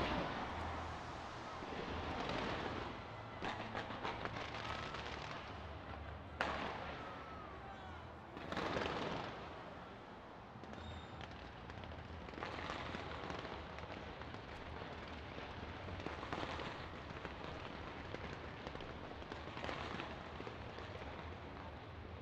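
A fireworks display going off: sharp bangs, the loudest about six and a half and nine seconds in, between repeated stretches of crackling.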